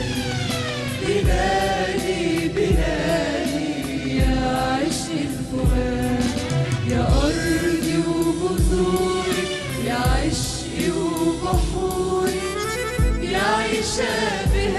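Mixed choir singing an Arabic song in unison, accompanied by oud, violin, keyboards and a hand drum, over a low beat that falls about every second and a half.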